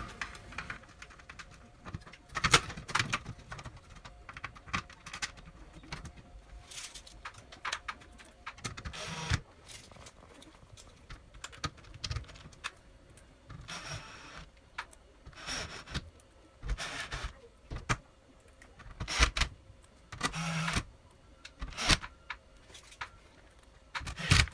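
Bosch cordless drill-driver running in several short bursts, driving screws that fasten an LED circuit board into a metal ceiling light housing, with clicks and knocks from the board and housing being handled in between.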